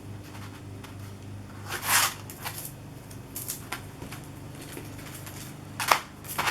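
Thin plastic stencil sheets being handled and swapped, giving a few short rustles, the loudest about two seconds in, and a sharp click near the end, over a low steady hum.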